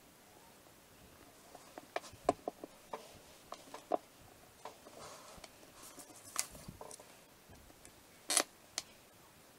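Scattered small taps and clicks of hands pressing and cutting play dough on a tabletop, starting about two seconds in, with the sharpest tap near the end.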